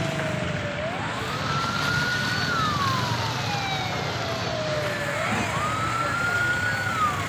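A siren wailing in slow cycles, rising quickly, holding a high note, then falling slowly, twice. A low steady rumble of traffic runs underneath.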